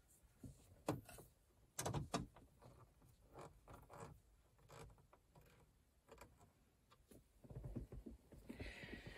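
A few faint, sharp clicks and taps of hands handling the plastic instrument cluster parts of a Chevy Caprice dashboard, with a soft rustle near the end.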